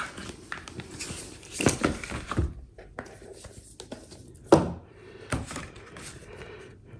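Cardboard packaging being handled while a Mac mini is unboxed: rustling and scraping, with a sharp knock about halfway through and a lighter one just after.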